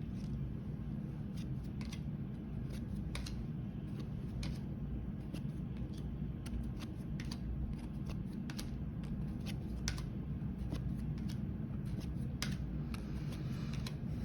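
Trading cards being handled and flipped through: irregular soft clicks and slides of card stock, over a steady low hum.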